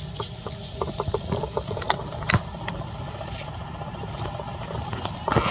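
A low steady rumble with scattered sharp clicks and rustles. Just before the end a baby long-tailed macaque starts crying.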